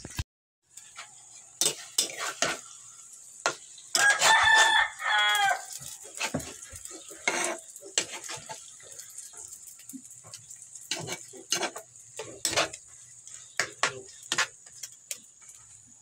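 A spatula scrapes and knocks in a frying pan of corned beef and egg cooking over a wood fire, over a steady sizzle. A rooster crows once, about four seconds in, lasting a second and a half.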